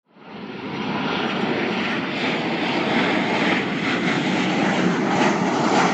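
Jet airliner's engines running, a steady, even noise that fades in over the first second.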